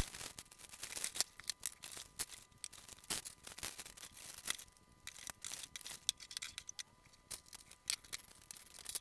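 Clear plastic bags crinkling and rustling as they are opened by hand, with irregular light clicks and clatters of small metal and plastic spotlight parts being set down on a table.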